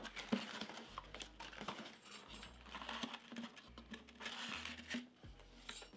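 Faint rustling and scattered light clicks of packing material and cardboard being handled while a packed box is unpacked layer by layer.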